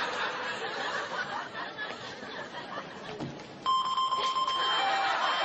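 Audience chuckling and murmuring. About three and a half seconds in, a walk-through metal detector's alarm starts: a steady high electronic tone, with a second, lower tone blipping on and off.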